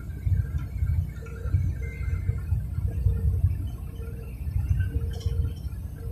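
Low, pulsing rumble of road and wind noise from a vehicle moving at highway speed, heard from inside the cabin.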